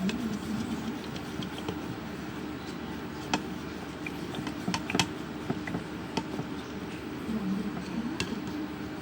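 Purple-tinted milk glue being stirred in a container, the stirrer clicking and knocking irregularly against the sides over a steady scraping.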